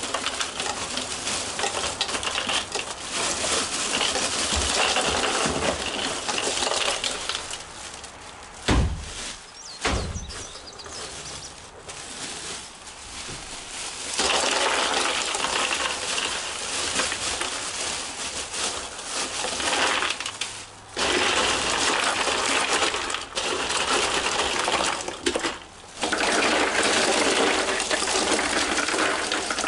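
Ice cubes poured from plastic bags into two hard-sided coolers, clattering and rattling onto plastic water bottles and the coolers' liners in long pours broken by short pauses. Two dull thumps come about 9 and 10 seconds in.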